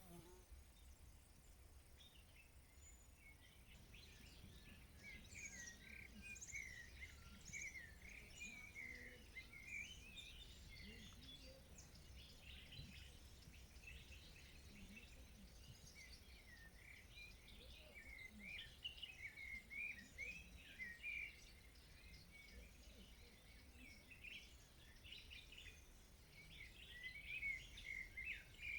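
Faint chorus of several small songbirds twittering and chirping in quick, overlapping high-pitched phrases, thickening about four seconds in, over a steady low rumble.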